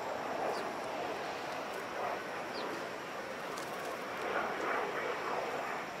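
Steady outdoor background noise with a few faint, short chirps from house sparrows.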